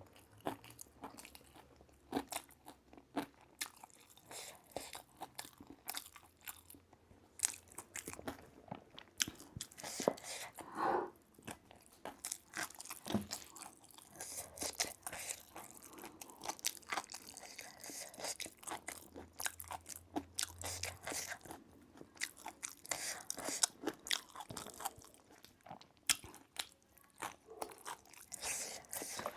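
Close-miked chewing and crunching of food, with many short, irregular bites and mouth clicks.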